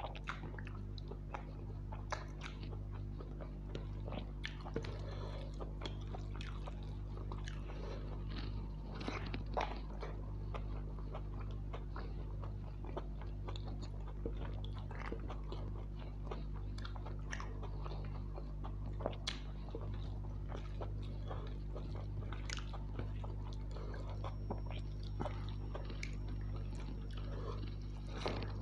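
Close-up chewing and mouth sounds of a person eating soya chunk pulao and curry by hand: wet smacking and many small clicks, over a steady low hum.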